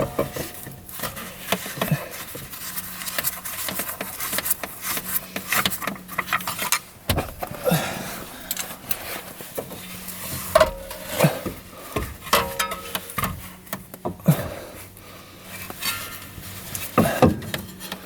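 Irregular metal clinks and clatter of hand tools on engine parts, a series of sharp knocks at uneven intervals.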